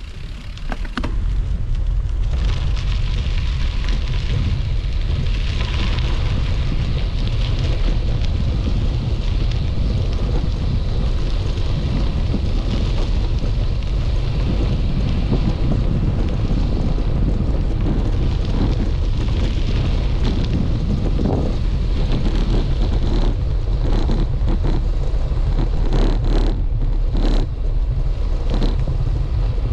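Steady wind rush and rumble of travel on a camera carried along a road, building up over the first two seconds as it gets moving, with scattered short knocks from bumps in the second half.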